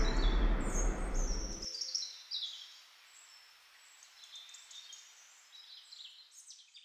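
Background music cuts off suddenly under two seconds in, leaving faint, repeated short chirps of small birds over a light hiss.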